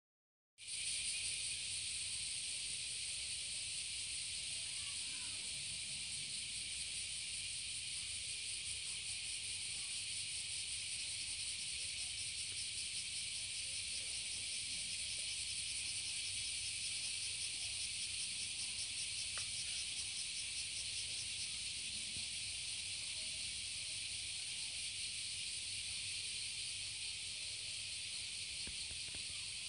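Steady high-pitched drone of cicadas in a summer chorus, unbroken throughout.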